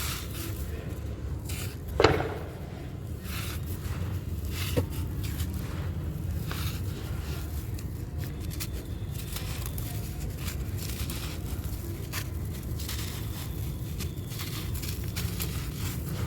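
Dry, crispy yellow blocks crumbling and breaking into chunks, with small crackles and scrapes throughout. There is one sharp snap about two seconds in and a smaller one about five seconds in.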